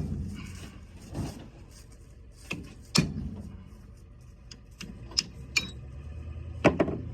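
Metal clanks and knocks of tools and parts on a combine's wheel hub during removal of a failed wheel bearing: a handful of irregular strikes, the loudest about three seconds in, over a low steady hum.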